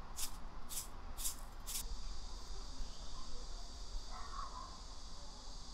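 Sesame seeds rattling in a container as it is shaken over a plate, about two shakes a second, stopping about two seconds in. After that there is only a faint steady hiss.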